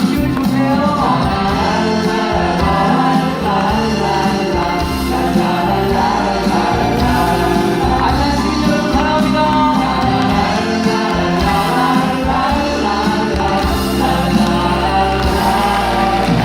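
A live musical-theatre number: several voices singing together over band accompaniment.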